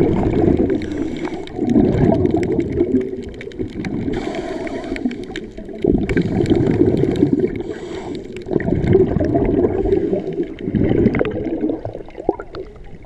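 Muffled underwater rushing and gurgling of seawater, swelling and fading every two seconds or so, as heard with the microphone below the surface.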